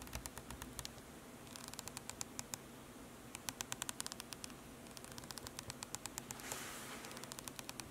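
Faint creaking sound effect: a slow creak of a cross swinging on its nail, in about five drawn-out strokes, each a string of rapid clicks, with short gaps between them.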